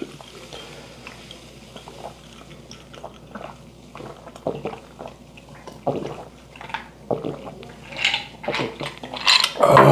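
Two men gulping down drinks from glasses: a run of small swallowing and sipping sounds and light clicks, growing busier toward the end, then a loud voiced exhale near the end.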